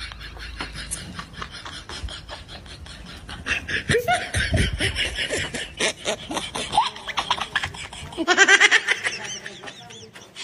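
Laughter in quick pulses, growing louder a few seconds in, with a louder burst near the end.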